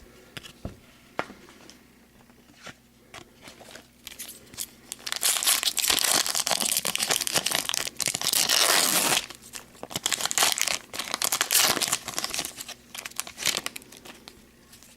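Wrapper of a hockey card pack crinkling and tearing as it is opened and the cards handled: a few light clicks at first, then loud crinkling and ripping from about five to nine seconds in, with more rustling bursts after.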